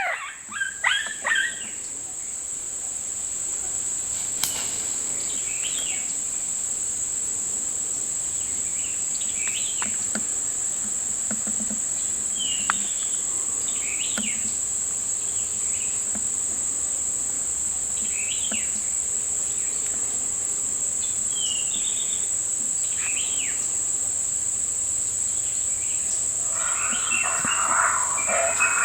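Insects buzzing in a steady, even high-pitched drone, with short bird chirps scattered through it.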